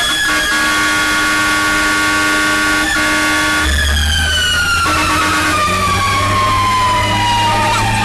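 Fire engine siren sounding at a steady high pitch while an air horn blasts for about three seconds. After the horn stops, the siren's pitch falls slowly and steadily, and a low engine rumble comes in under it.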